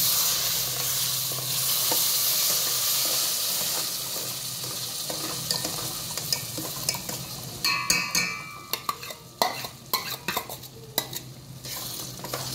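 Coloured water poured into hot ghee-roasted semolina in a steel pot, sizzling and hissing loudly at first and dying down after a few seconds as the mixture is stirred. A spatula scrapes and clicks against the steel pot through the second half.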